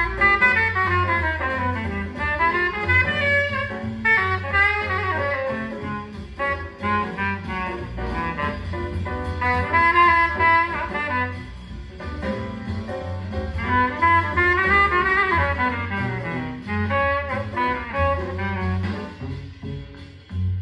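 Jazz record playing on a turntable: a saxophone carrying the melody over a walking double bass.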